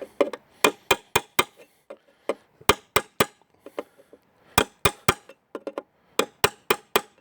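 Hammer striking the steel teeth of a single-sided toothed-plate timber connector to drive them into the wood: a series of sharp, light metallic taps in quick clusters of three or four, with short pauses between clusters.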